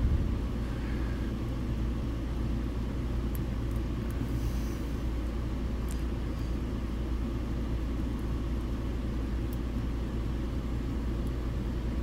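Steady low background rumble with a faint hum in it, and a few faint light ticks of a hook pick and tension tool working inside a trailer coupler lock.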